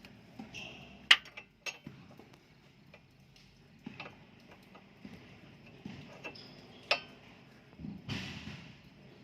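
Metal hand tools clinking and clicking: a few scattered sharp metallic chinks, some ringing briefly, the loudest about a second in and another near seven seconds, with a short rustle near the end.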